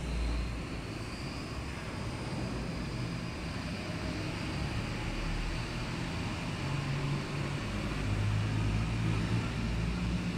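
Steady low background rumble of indoor room ambience, with no distinct events and a slight swell near the end.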